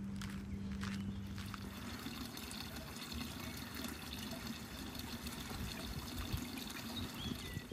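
Water trickling steadily, like a small brook or runoff.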